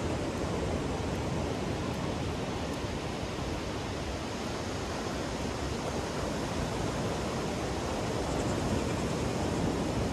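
Ocean surf breaking on a sandy beach, a steady, even rush of waves with no single crash standing out.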